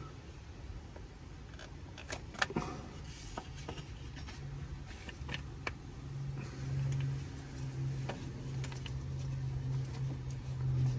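A motor vehicle engine running steadily, coming in about four seconds in and growing louder. Scattered light clicks and a couple of louder knocks of metal on metal about two seconds in.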